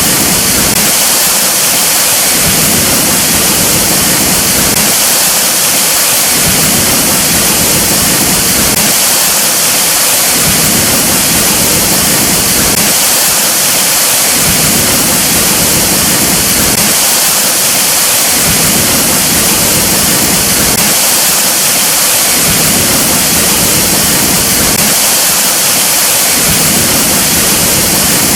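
Loud, steady rush of a waterfall: dense falling-water hiss, with the low rumble dipping briefly about every four seconds.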